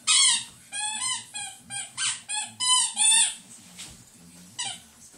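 A dog 'singing': a quick run of about eight short, high howling calls, each bending up and down in pitch, then a single further call about a second and a half later.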